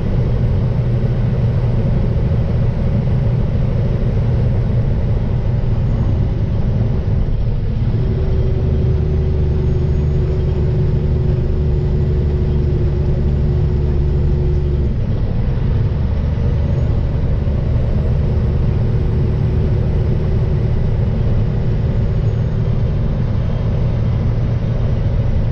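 Truck's engine and road noise, heard from the cab while towing a trailer, a steady low hum. From about 8 to 15 seconds in a heavier drone with a steady tone comes in, then eases. This is the exhaust drone the driver hears near 1600 RPM, which he suspects is an exhaust leak.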